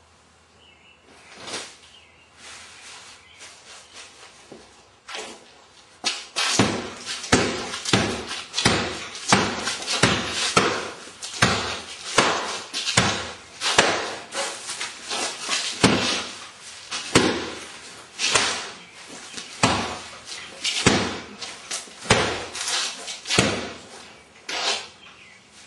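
A long series of hard strikes: a few scattered knocks at first, then from about six seconds in a steady run of blows, one or two a second.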